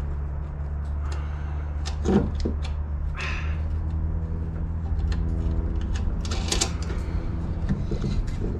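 Metal clunks, a knock and a short scrape as a front strut assembly is worked up into its mount under the fender. A steady low hum runs underneath throughout.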